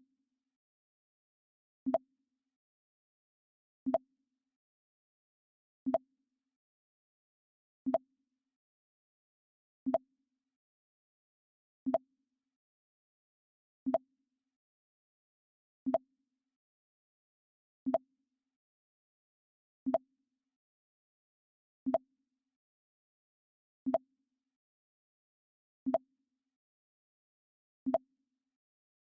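Mac OS X 'Pong' system alert sound: a short blip repeated every two seconds, with silence between.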